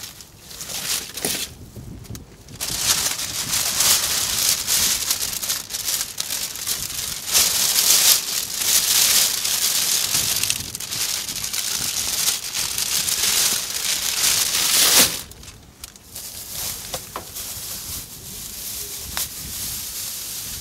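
Plastic rubbish bags crinkling and rustling as they are pulled open and rummaged through by hand. The rustling is loudest from a couple of seconds in until about fifteen seconds in, then carries on more quietly.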